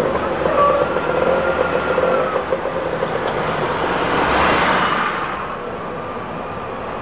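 Electric trolleybus passing close by in city traffic: a steady whine over the first couple of seconds, then a rush of noise that swells to a peak about four and a half seconds in and fades.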